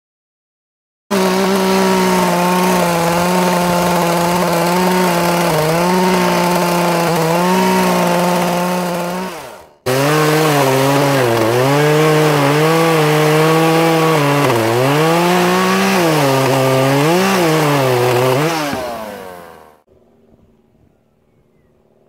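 Handheld power drill boring into a timber post. The motor runs in two long stretches with a short break between them, and its pitch sags again and again as the bit loads up in the wood.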